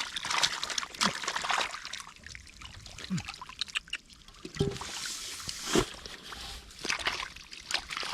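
Shallow canal water trickling and splashing, with irregular splashes throughout.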